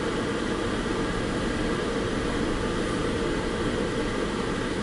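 Steady engine and road noise inside a car's cabin as it rolls slowly through a parking lot.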